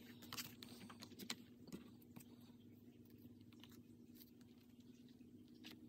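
Near silence: a few faint clicks and taps of paper planner inserts being handled, most in the first two seconds and one more near the end, over a low steady hum of room tone.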